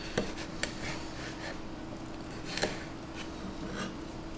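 Knife cutting through a smoked beef short rib on a cutting board: a few short taps and slicing sounds, over a faint steady hum.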